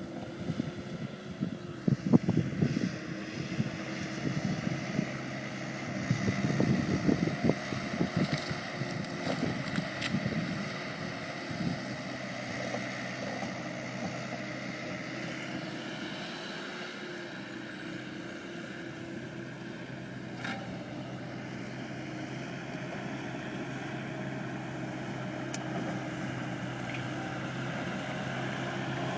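Bobcat skid steer engine running, with irregular clattering knocks over roughly the first twelve seconds, then running steadily and slightly rising toward the end.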